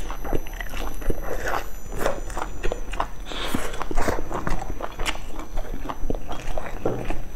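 A person biting into and chewing a crispy fried pastry close to a clip-on microphone: irregular crackly crunches with wet mouth sounds in between.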